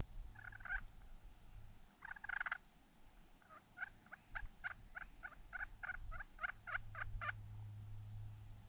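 Faint turkey yelping: a single yelp, a second one a moment later, then a run of about fifteen evenly spaced yelps at roughly four a second that stops shortly before the end.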